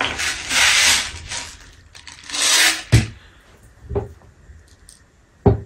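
4.5 mm steel BBs rattling as they are poured from a bottle into the loading hole of a Beretta M9A3 CO2 pistol magazine, in two spells, followed by a few sharp clicks and a knock as the magazine is handled.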